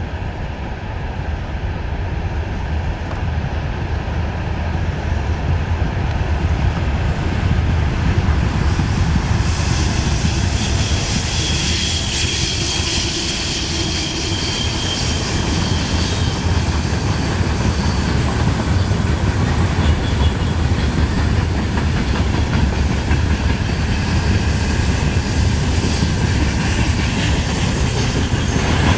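VL11M6 electric locomotive and its freight train of open wagons rolling past: a steady rumble of wheels on rails with clickety-clack over the rail joints. It grows louder from about eight seconds in as the locomotive draws level, with a faint high whine while the locomotive passes.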